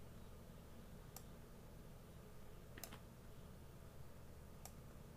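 Near silence with a low hum, broken by three faint, sharp clicks about a second and a half to two seconds apart, from a computer mouse being clicked.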